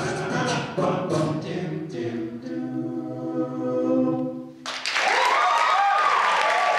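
All-male a cappella group singing the last bars of a song, ending on a held chord that cuts off sharply about four and a half seconds in. Audience applause and cheering break out right after.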